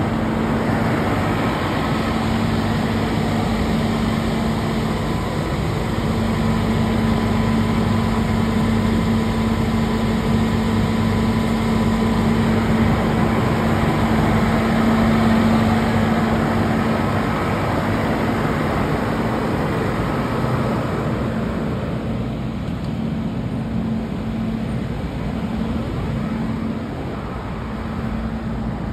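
Pierce Quantum fire engine running steadily to drive its fire pump: a constant engine hum with a lower drone beneath it. A rushing noise over the hum drops away about 22 seconds in.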